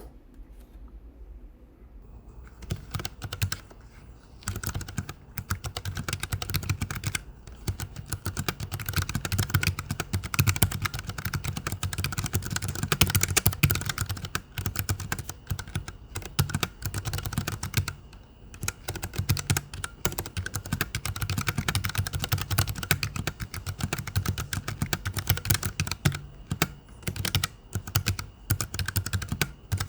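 Fast, continuous typing on a Keychron K7 mechanical keyboard with Mint keys: a rapid stream of key clicks that starts about two seconds in, with a few short pauses.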